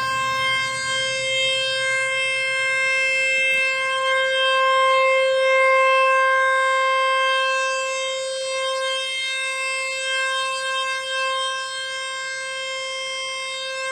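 Steady electronic test tone from a phone's hertz-generator app, played through the phone's speaker and held at one unchanging pitch with a buzzy edge of overtones, inside a concrete bunker.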